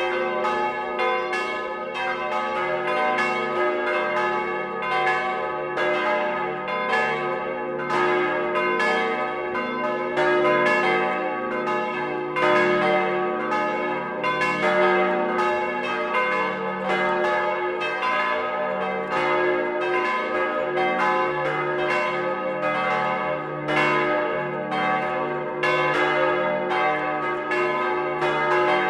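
Bronze church bells cast in 1949 by Petit & Gebr. Edelbrock, swinging and ringing close up in the belfry. Struck strokes come one to two a second, overlapping, each ringing on in many partials.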